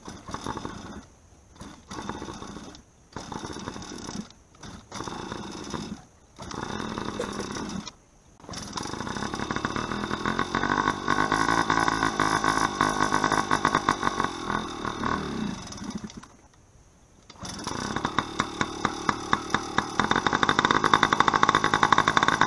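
Yamaha PW50's small two-stroke engine being kick-started on choke. For the first several seconds it fires in short bursts and stops on each kick. It then catches and runs, dies for about a second, and is kicked back to running, with a regular pulsing near the end. The engine is reluctant to keep running with the choke on.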